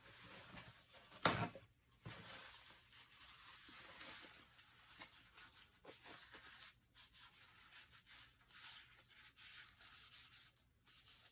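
Quiet handling noise: a single sharp knock about a second in, then faint, intermittent scratchy sounds.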